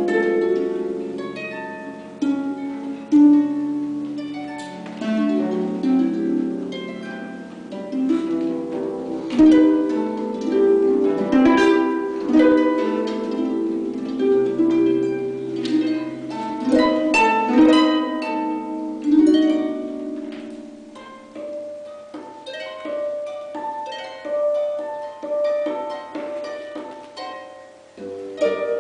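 Concert pedal harp played solo: dense runs of plucked notes ringing over one another, swelling and fading in phrases, dropping to a quiet passage near the end before a new phrase starts.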